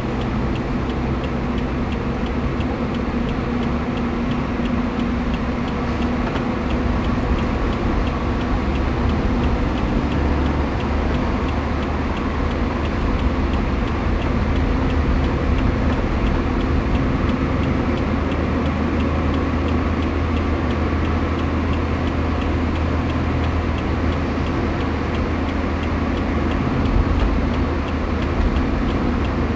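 Steady road and engine noise inside a car's cabin at highway speed, a continuous low hum.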